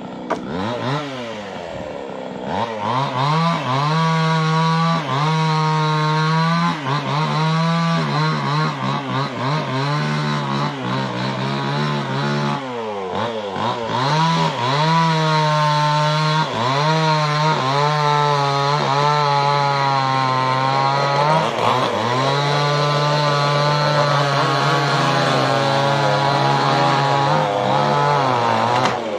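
Chainsaw engine revved and held at high speed, its pitch wavering, dropping back and climbing again about a second in, about halfway through, and again a little later.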